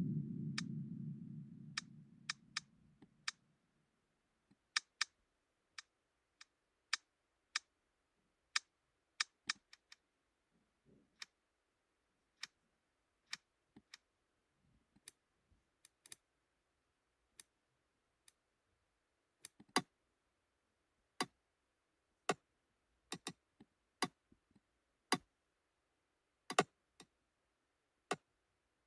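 Computer-generated ear-clicking sound imitating middle ear myoclonus: sharp, short clicks at irregular intervals, about one or two a second, some louder than others. A low simulated rumble fades out over the first few seconds.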